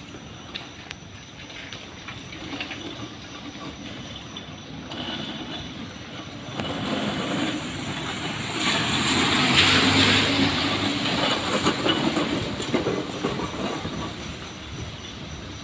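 A large vehicle passes by, its noise building up to a peak about nine to ten seconds in and then fading, with a rumble under a hiss.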